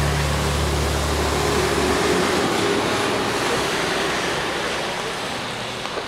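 Wet city street in the rain: steady hiss of rain and tyres on wet pavement, with a motor vehicle's low engine hum that drops away about two seconds in.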